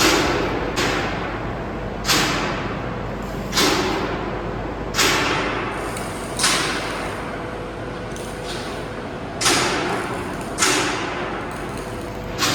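Carbonization furnace plant running with a steady noise, broken by sharp knocks or whooshes every second or so, each dying away over about half a second.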